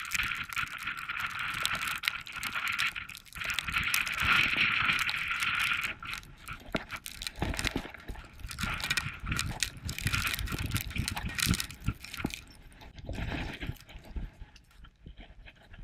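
Close-up jangling and rattling from the harness and collar of a dog wearing an action camera as it moves about on snow, over a steady hiss that fades after about six seconds.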